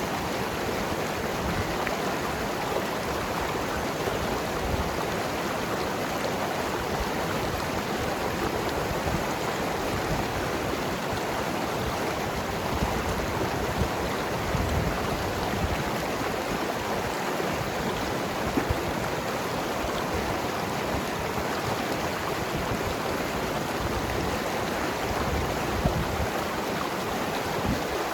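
Mountain river flowing over rocks: a steady rush of water with gurgling.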